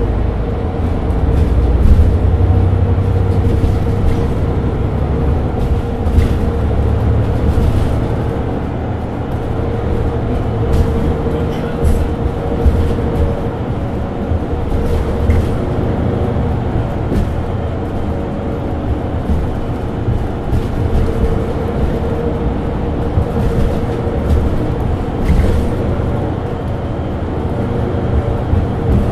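Mercedes-Benz Citaro 2G articulated bus running with a steady low diesel engine and drivetrain drone and a steady whine. Short clicks and rattles are scattered throughout.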